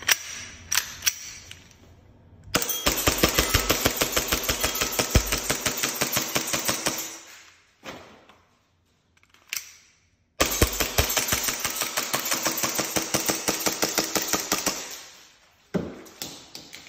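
ICS BLE-ICP gas blowback airsoft pistol firing two long full-auto strings, each a rapid even run of sharp clacks from the slide cycling, fading near the end until the slide locks back empty. Single clicks of magazine and slide handling come before, between and after the strings.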